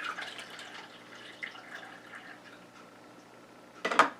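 Hot water being poured from a small cup into a single-serve coffee maker's water reservoir, a trickle that tapers off over the first couple of seconds. A short sharp knock near the end.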